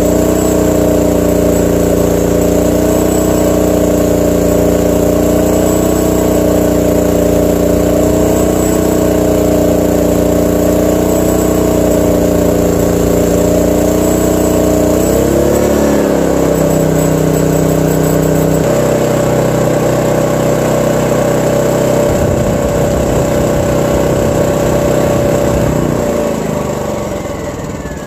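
Firman WH3300 dual-fuel inverter generator running on propane, its engine working steadily under the load of a 15,000 BTU RV air conditioner and a microwave. About halfway through the engine note dips and settles to a lower pitch, and near the end the pitch falls and the engine runs down.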